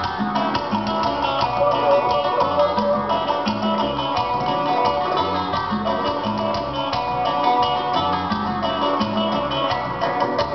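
Guitar-led recorded music played loudly and steadily over a DJ's PA sound system during a sound check.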